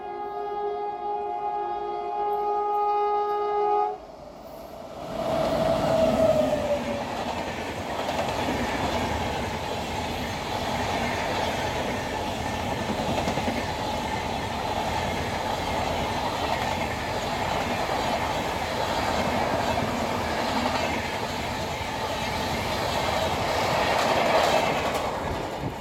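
A train horn sounds a steady chord for about four seconds. Then a Rajdhani Express rushes past at speed, its LHB coaches running loud and even, with the clatter of wheels over the rail joints.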